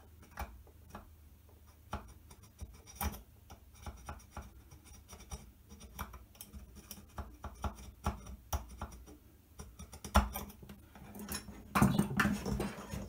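Irregular light scratches and clicks of hand tools working on a metal extrusion as a position is measured and scribed onto it. Louder knocks come near the end as the caliper is put down on the bench.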